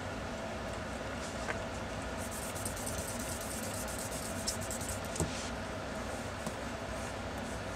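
Pencil scratching on drawing paper in quick sketching strokes, busiest from about two to five and a half seconds in, over a steady low background rumble.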